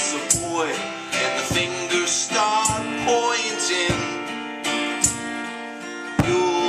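Acoustic guitar strummed in the song's instrumental passage, with a melody that bends in pitch over the chords.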